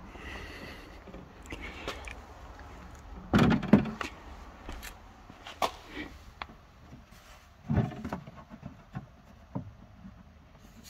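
A removed Audi A8 headlight unit's plastic housing being handled and set down, knocking and clattering against the floor, with the loudest knocks about three and a half seconds in and again near eight seconds.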